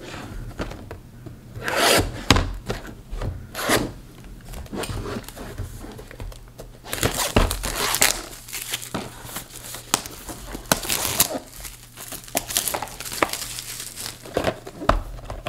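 Plastic shrink wrap being torn and peeled off a cardboard box, crinkling in irregular bursts, with rubbing and light knocks from the box being turned in the hands.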